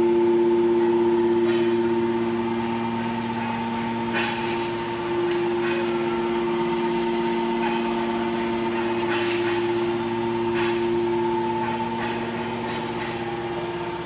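The hydraulic power unit of a 200-ton automatic scrap metal baler, its electric motor and pump running with a steady hum on several fixed pitches. There are a couple of brief sharp sounds about four and nine seconds in.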